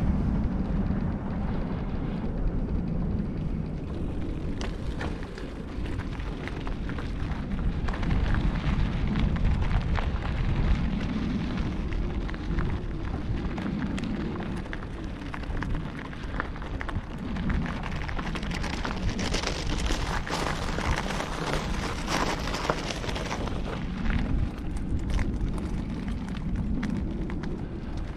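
Wind buffeting the camera's microphone while riding, a gusting low rumble over steady road noise, with a brighter hiss for a few seconds past the middle.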